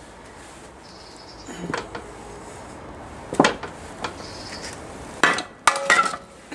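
Several separate sharp metal clanks and clinks as the steel parts of a Jaguar E-type rear suspension assembly are handled and knocked together. The last one, near the end, rings briefly.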